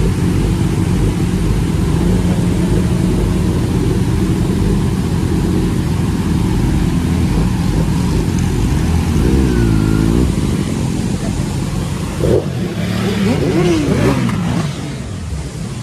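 Kawasaki ZX-10R's inline-four engine running loud, with its pitch swinging down and up a couple of times in the second half.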